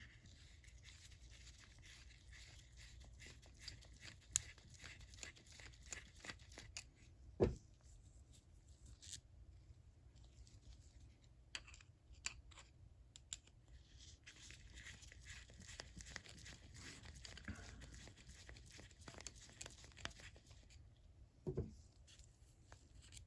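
A vintage Snap-On 71-M ratchet being worked on at the start of its teardown: two long runs of fast, fine clicking and scraping, with scattered single clicks between them. A knock about seven seconds in and another near the end.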